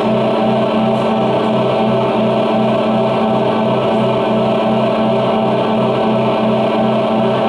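Live band playing loud amplified music: a steady held chord, with guitars in the sound, and a fast, even pulse underneath that does not break.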